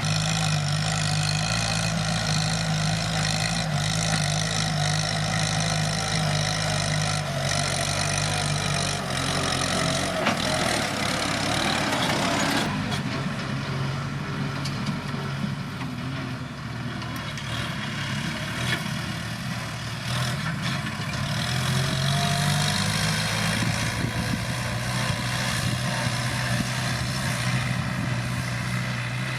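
Kubota M7040 tractor's diesel engine running steadily, with a rougher, noisier stretch about ten to thirteen seconds in before it settles again.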